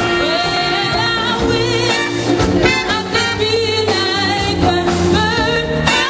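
Live band playing, with a woman singing lead in a wavering vibrato over congas and a drum kit.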